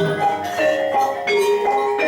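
Javanese gamelan music accompanying jathilan: struck bronze metallophones ringing in a steady, repeating run of notes.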